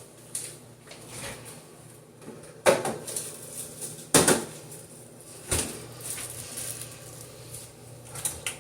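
Kitchen clatter: a handful of sharp knocks and bumps, the two loudest about three and four seconds in, with lighter ones after.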